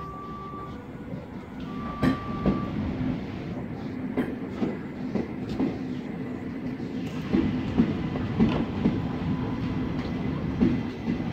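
S-Bahn electric train rolling past close by, its wheels clicking irregularly over the rail joints. A brief high tone sounds twice in the first few seconds, and the rumble grows louder as the train arrives.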